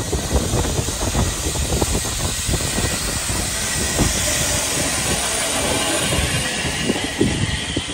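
Steam train passing close by, its wheels knocking over the rail joints with a steady hiss of steam.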